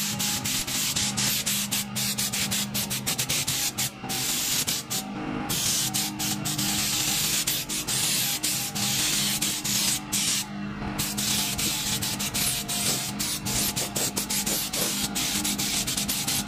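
Compressed air hissing through a gravity-feed spray gun as it sprays a mist onto aluminum pontoon tubes, the trigger released and pulled again many times in quick succession, with two longer pauses about five and ten seconds in.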